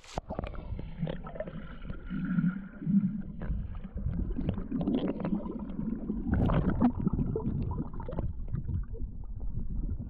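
Muffled sloshing and gurgling of water, heard through a camera at and under the water's surface as a person wades and grabs at fish by hand, with many small knocks and clicks.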